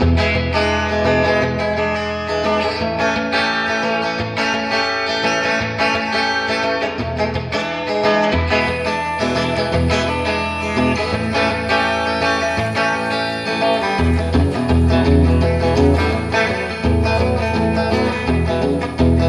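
Background music: strummed acoustic guitar in a country style over a steady bass line.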